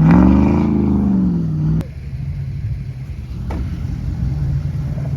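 A truck engine revving, its pitch dipping and then rising again; about two seconds in it cuts off suddenly to a quieter, steady low engine rumble.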